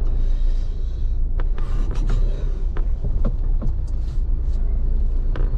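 Steady low rumble of a car driving on a paved road, engine and tyre noise heard from inside the cabin, with a few light clicks or rattles scattered through it.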